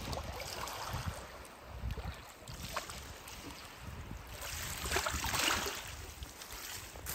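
Small waves lapping and washing against a rock ledge over pebbles at the lake's edge, with wind rumbling on the microphone. A louder wash comes about five seconds in.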